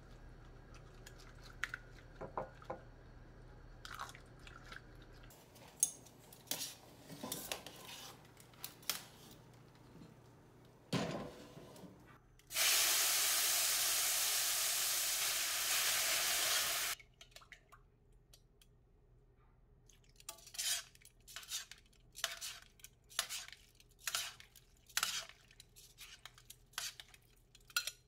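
A spring whisk clinking and scraping in a glass bowl of beaten eggs. About twelve seconds in, a loud steady sizzling hiss as the cooked bucatini goes into the hot steel pan, cutting off suddenly after about four seconds. Then quick metal clicks of the pasta being stirred in the pan, two or three a second.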